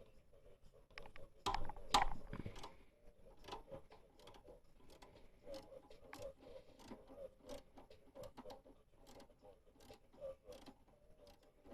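A 12 mm wrench loosening the alternator adjustment bolt on a Kia Spectra: a series of small metal clicks, with a louder clatter of knocks about two seconds in.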